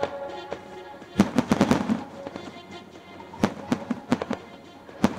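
Aerial fireworks shells bursting: a rapid string of sharp bangs about a second in, then another scattered volley of bangs about three and a half seconds in.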